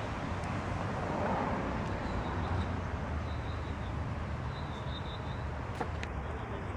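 Steady outdoor background noise with a low hum, and two sharp clicks near the end.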